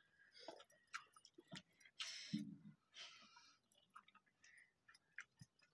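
Faint eating sounds: scattered small clicks and soft chewing as rice and curry are eaten by hand from steel plates, with a couple of brief breathy rustles about two and three seconds in.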